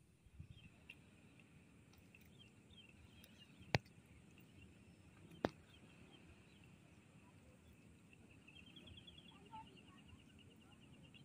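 Near silence, with faint high chirping and trilling that grows denser near the end. Two sharp clicks come about four and five and a half seconds in.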